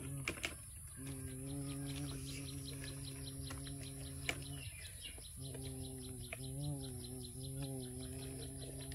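A person humming a low, steady engine drone in imitation of a truck, broken by short pauses about half a second in and near the middle, the pitch wavering near the end. A fast, even insect chirping runs behind it.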